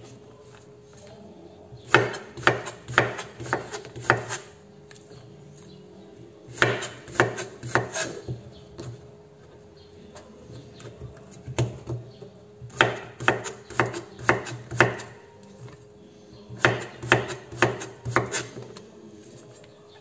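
Kitchen knife slicing a zucchini thinly on a wooden cutting board: short runs of quick knocks as the blade hits the board, about two or three a second, with pauses of a second or two between runs.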